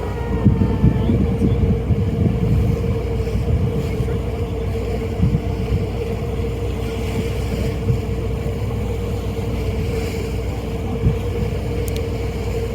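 Steady drone of a ferry's engines, a low rumble with a constant hum, with wind buffeting the microphone.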